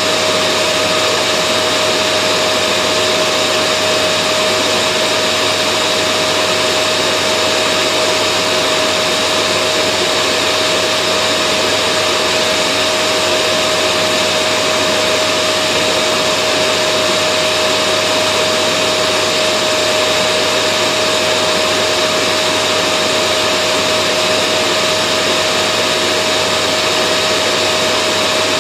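Vacuum cleaner running steadily without change: a constant airy noise with a steady whine held on one pitch.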